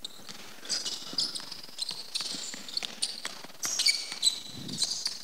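A basketball being dribbled on a hardwood court floor, with short high squeaks from players' sneakers on the wood as they cut and shuffle.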